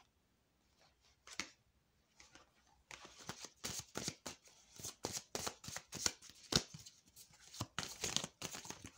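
An oracle card deck being shuffled by hand: nearly quiet at first with one click, then from about three seconds in a rapid, uneven run of card slaps and flutters.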